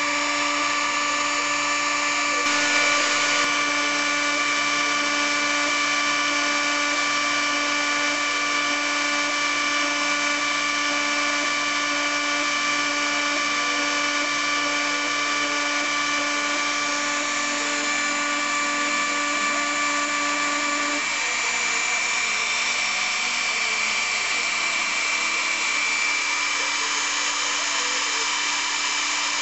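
Hobby CNC router's spindle running with a steady whine of several high tones while milling a relief into wood. About twenty seconds in, the lower hum drops out and a higher, hissier machine sound carries on.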